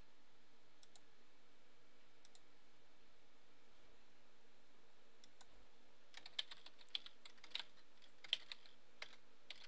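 Computer keyboard typing: irregular key strikes starting about six seconds in, after a few faint clicks, over a low steady hum.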